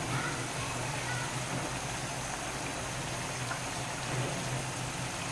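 Prawn gravy simmering in a clay pot over a gas flame: a steady, low hiss and bubbling.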